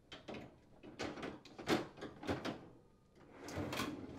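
Plastic ice bucket and wire freezer basket set into a refrigerator freezer drawer's basket frame, clattering in a string of short knocks. Near the end the basket frame slides back on its rails with a longer sliding rumble.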